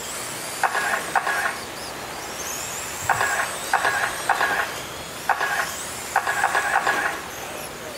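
Radio-controlled late model oval cars racing on clay: high whines from their electric motors rise and fall as the cars accelerate, with short buzzing bursts several times as cars go by.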